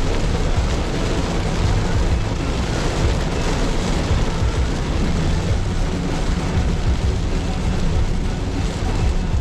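Steady road and engine noise of a 2019 Mitsubishi Xpander Cross on the move, heard from inside the cabin as a constant deep rumble under an even hiss.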